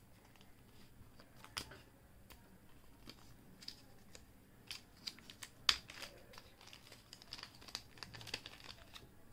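Small clear zip-lock plastic bag crinkling faintly as fingers work it open, with scattered crackles and a few sharper clicks, the loudest about halfway through.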